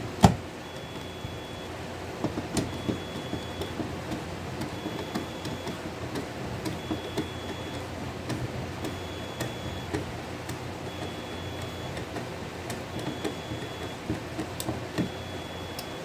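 Hand screwdriver driving the mounting screws of a plastic horn strobe into a metal back box: a sharp click just after the start, then a run of small irregular ticks and scrapes as the screws turn. A faint high beep repeats about every two seconds behind it.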